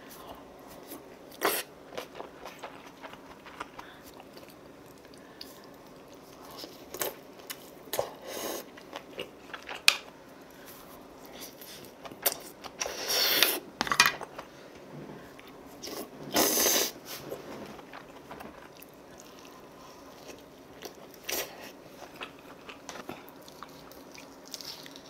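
Close-miked mukbang eating of braised kimchi with pork back ribs: chewing and biting with frequent small clicks and snaps. Two louder noisy stretches of about a second come around the middle.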